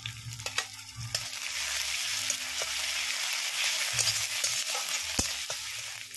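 Ginger-garlic paste sizzling in hot oil with sliced onions and green chillies in a metal kadai, the sizzle swelling about a second in as it is stirred, with the clicks and scrapes of a metal spatula against the pan.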